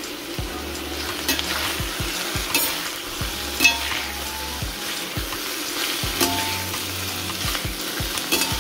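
Shredded cabbage, carrots and celery sizzling in hot oil in a stainless steel pan as they are stir-fried and tossed with two metal spoons. Scattered clinks and scrapes of the spoons on the pan sound over the steady hiss.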